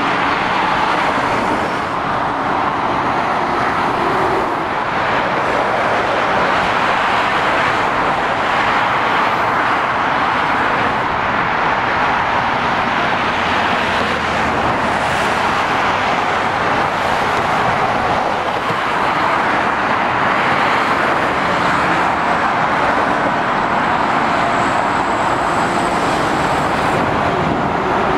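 Steady road traffic on a dual carriageway: the tyre and diesel engine noise of lorries and cars driving past, with small swells and dips as individual vehicles go by.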